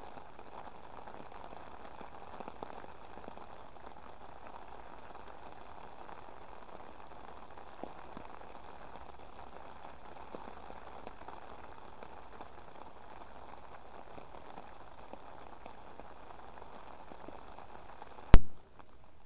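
Steady rain falling on the river and on a fishing umbrella overhead, an even hiss. One loud, sharp click comes near the end.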